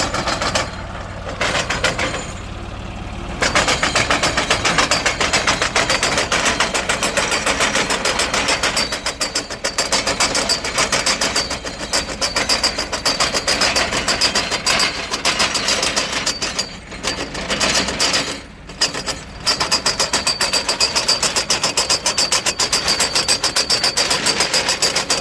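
John Deere 5210 tractor running under load in soil, a loud engine sound with a fast, regular knocking pulse and a thin high whine. It eases off briefly near the start and twice more past the middle.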